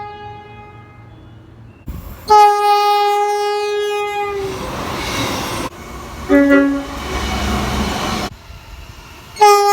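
Train horns in a string of short clips cut together: one horn fading out, then a loud blast about two seconds in that gives way to the noise of the passing train, a short lower-pitched blast about six seconds in, and another loud blast beginning just before the end. Each change comes abruptly.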